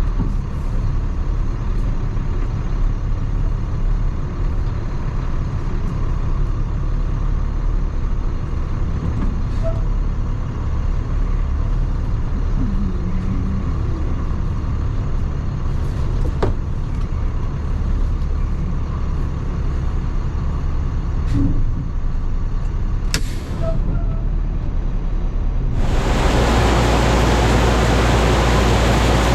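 Truck engine running steadily with a low rumble, with a few faint clicks. About 26 seconds in it gives way abruptly to a louder, steady rushing noise.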